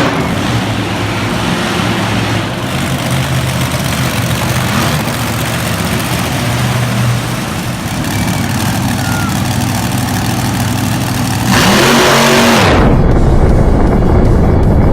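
Monster truck engine running with a steady low drone, then revving hard, with the pitch rising and falling, about eleven and a half seconds in. About a second later the sound cuts abruptly to a different, louder and duller sound.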